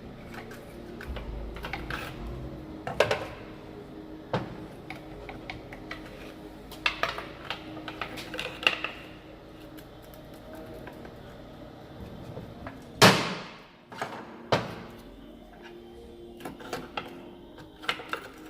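Steel lever bars clinking and knocking against a manual gearbox's selector linkage while the seized selector joint is pried off its shaft. There are scattered sharp metal taps, and a loud metallic clank about thirteen seconds in rings on briefly.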